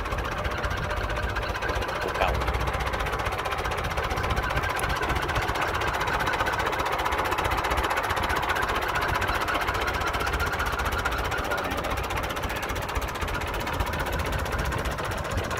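Ford 5000 tractor engine idling steadily while the tractor stands still.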